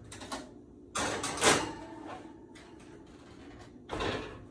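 A metal sheet pan scrapes onto an oven rack, ending in a sharp clank about a second and a half in. Near the end the oven door thumps shut.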